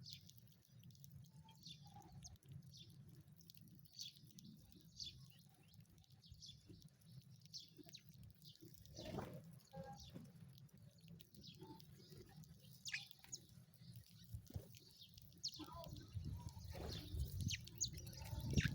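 Sparrows chirping: short, scattered high chirps over a steady low hum, with a few soft knocks about halfway through and near the end.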